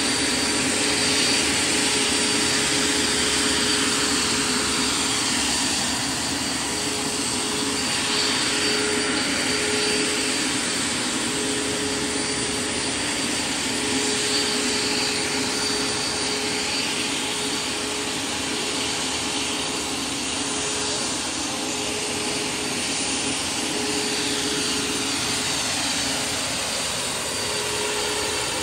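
Turbine-powered RC scale MD 600N helicopter running and flying: a steady high turbine whine over the rush of the rotor and tail electric ducted fan, wavering as the model lifts off and moves. The ducted fan is turned down to 20% on the throttle curve to lower its amp draw.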